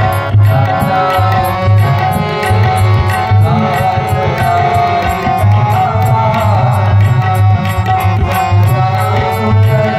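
Devotional music with tabla playing a steady, fast rhythm, its deep bass drum booming, under sustained held melodic tones.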